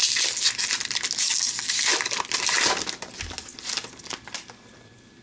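Wrapper of an Upper Deck Series One hockey card pack crinkling as it is handled and opened. The crackling stops about four and a half seconds in.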